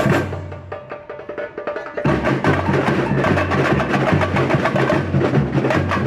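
Samba bateria drumming: the deep surdo drums and most of the band stop just after the start, leaving only light, quieter percussion, then the full bateria comes back in about two seconds in and plays on.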